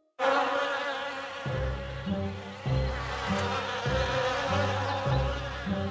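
Buzzing of a swarm of bees, a cartoon sound effect, over light background music whose bass line comes in about a second and a half in, about two notes a second.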